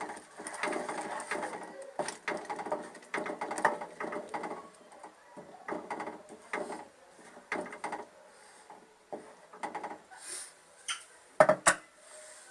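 A spoon stirring thick cooked masoor dal in a pot, scraping and knocking against the pot in repeated strokes. Two sharp knocks, the loudest sounds, come about a second before the end.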